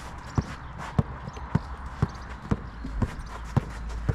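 Basketball dribbled on an outdoor court: a steady run of bounces, about two a second.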